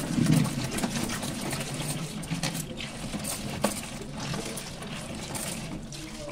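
Tap water running into a plastic colander in a steel sink while a hand rubs and stirs a batch of katarua, small round wild mushrooms, with a few faint clicks as they knock together.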